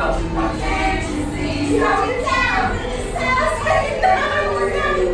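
A group of women singing loudly together, a pop song chanted in unison, over the steady low rumble of an Underground train carriage.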